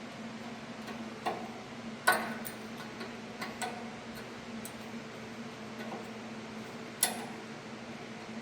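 Sharp metal clicks and knocks of a rear brake pad being pushed into the caliper bracket's slide clips, a few at uneven intervals, with two louder ones about two seconds in and about seven seconds in. A steady low hum runs underneath.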